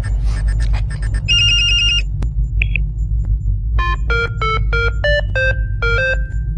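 Computer terminal beeping: a buzzing alert tone, a short chirp, then a quick little tune of about eight electronic beeps at different pitches. A low steady hum runs underneath.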